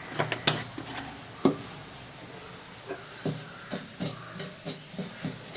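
Onion-tomato masala sizzling steadily in a pan, with a string of sharp clicks and knocks from the cooking utensils scattered through it.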